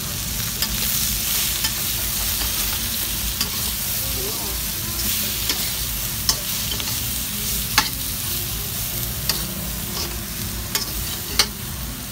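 Flowering chives and shrimp sizzling steadily in a hot steel wok as they are stir-fried. A metal spatula clinks sharply against the wok now and then.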